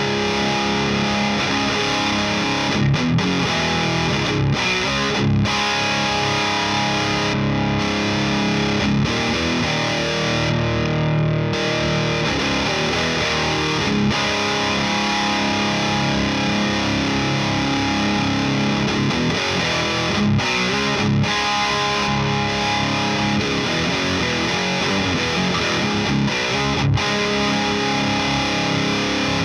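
Electric guitar played through an overdrive pedal into the Rivera Knucklehead Reverb tube amp's crunch channel, strumming and picking distorted chords and riffs without a pause.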